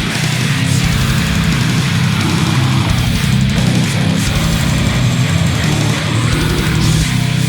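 Death metal: distorted electric guitar riffing over bass, loud and dense.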